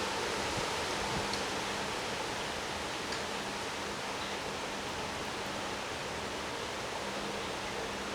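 Severe thunderstorm's high wind and rain, a steady rushing noise with no breaks or thunderclaps.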